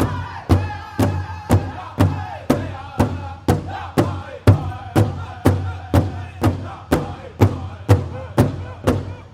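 Powwow drum group singing: several voices chanting high over a large powwow drum struck in unison in a steady beat, about two strokes a second.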